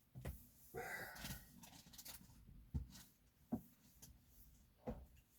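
Quiet pause in a small room: a soft breath about a second in, then three faint clicks spread over the next few seconds.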